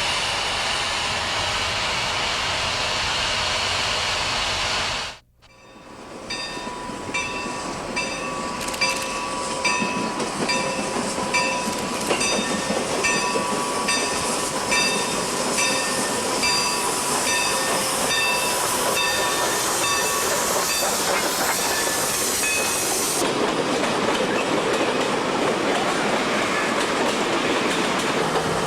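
A steady rushing hiss that cuts off about five seconds in. Then Milwaukee Road 261, a 4-8-4 Northern-type steam locomotive, rolls by with its train: wheels clacking over the rail joints, and its bell ringing at an even pace for about fifteen seconds.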